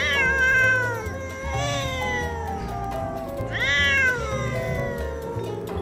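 Two cats in a face-off, one giving three long, drawn-out yowls that rise and then slowly fall in pitch: the threatening yowling of a territorial standoff. The yowls sound over background music.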